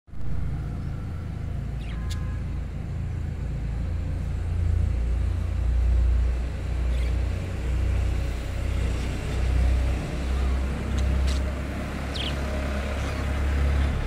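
Low rumble that swells and fades in slow waves, with a few short, faint chirps from budgerigars over it.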